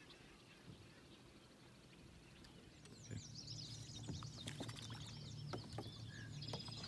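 Faint small-bird chirping: a run of quick, high, falling chirps that starts about three seconds in, over a low steady hum.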